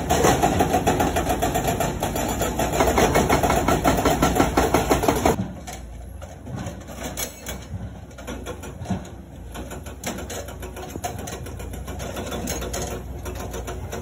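Komatsu hydraulic breaker on an excavator hammering rock in a rapid, steady run of blows over the diesel engine. The hammering stops about five seconds in, leaving the excavator engine running with a few scattered knocks.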